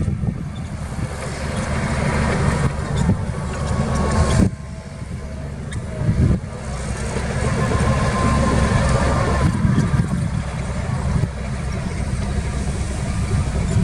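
Heavy diesel earthmoving machinery working, its engine running loud and steady, with sudden changes in level a few times.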